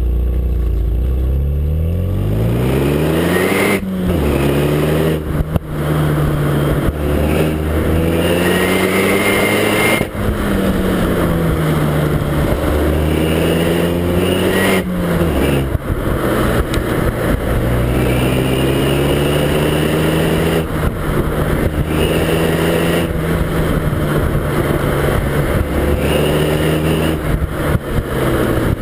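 Renault Mégane RS 265 Cup's turbocharged 2.0-litre four-cylinder exhaust heard close to the tailpipe as the car drives. The engine note climbs under acceleration and drops sharply at each gear change or lift-off, several times, with stretches of gently rising and falling revs between.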